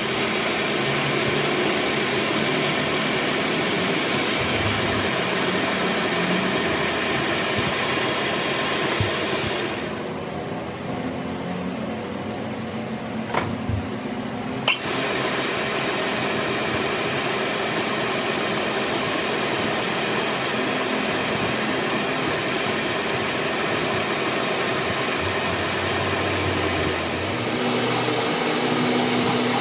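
A workshop machine running steadily with a constant hum and hiss. The high hiss drops away for a few seconds around the middle, followed by two sharp clicks.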